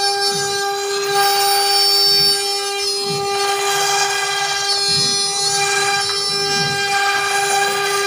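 CNC router spindle whining at a steady high pitch with overtones while its cutter mills a slot through a coconut-fibre (coir) composite panel.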